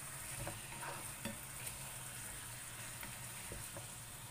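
Chicken pieces and onion rings sizzling faintly in sauce in a nonstick frying pan, stirred with a spatula that gives a few soft scrapes and taps.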